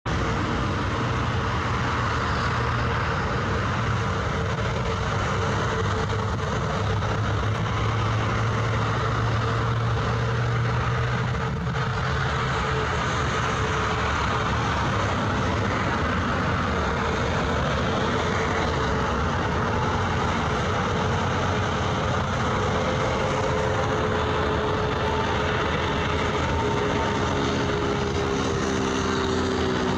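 Steady roar of road traffic and idling jet engines, with a constant whine. In the last few seconds several whining tones begin to rise as the Airbus A320neo's engines spool up for the takeoff roll.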